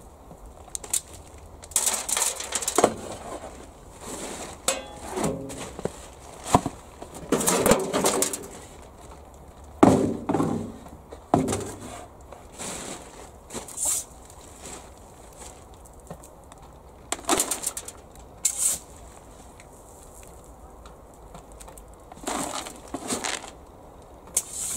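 Shovel scooping compost out of a bag and tipping it into plastic buckets: irregular scrapes and soft thuds of soil, in a string of bursts with short pauses between.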